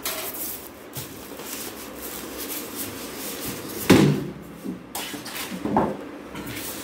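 Polystyrene foam packing and plastic wrap being handled while an oven toaster grill is unpacked: steady rustling, with a loud thump about four seconds in and a smaller knock nearly two seconds later.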